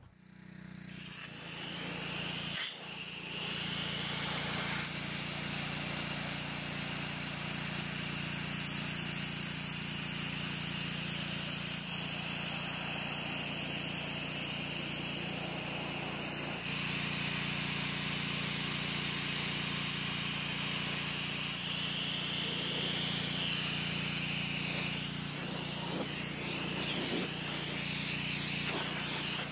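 Pressure washer running steadily, a low motor-and-pump hum under the hiss of the spray jet hitting a lawnmower deck. The sound dips briefly about three seconds in.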